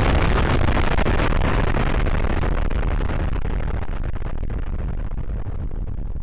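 Nuclear bomb blast sound effect: a long, dense rumbling roar that slowly dies away, the hiss fading first and a low rumble remaining.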